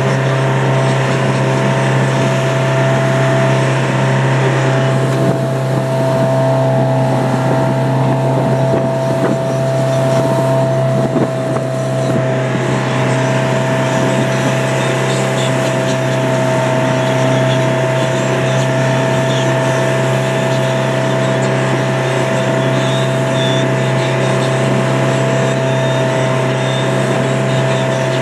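Motorboat engine running steadily at speed: a constant low drone with a steady higher whine over it.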